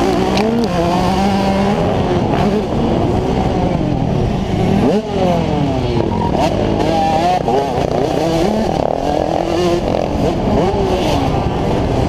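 2003 Yamaha YZ125's 125cc two-stroke single-cylinder engine revving hard at race pace, its pitch climbing and dropping again and again through gear changes, with other motocross bikes' engines rising and falling close by, their pitches crossing about five seconds in.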